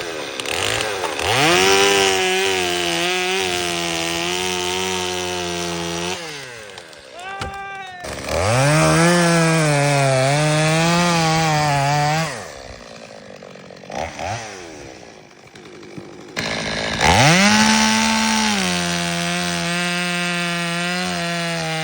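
Chainsaw revved up to full throttle three times and cutting into wood, its pitch wavering as the chain works under load. Between cuts it falls back to a low idle.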